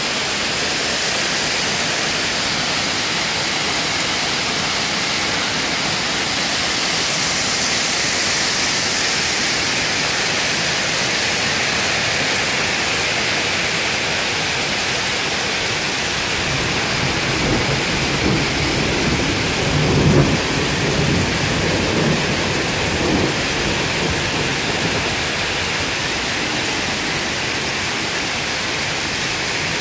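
Heavy rain pouring down steadily, with water streaming off the roof eaves. A roll of thunder rumbles for several seconds a little past the middle, loudest about two-thirds of the way through.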